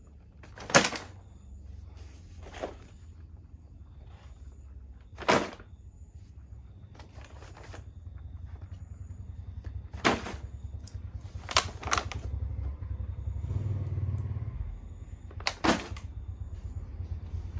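Plastic blister-packed toy sets on cardboard backing being handled and set down, giving about seven sharp plastic clacks and rustles spread irregularly, the loudest about a second in. A steady low hum runs underneath.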